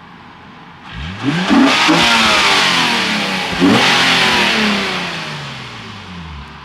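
Naturally aspirated sports car accelerating hard past, its engine note climbing as it revs and then falling away as it recedes, fading out over the last couple of seconds.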